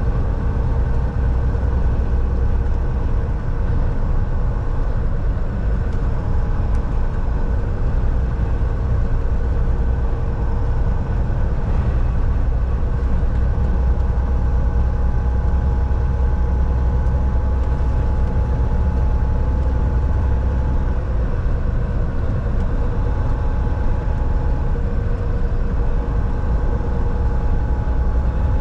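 Volvo semi-truck on the move: a steady diesel engine drone and low road rumble, with an even hum and no change in pace.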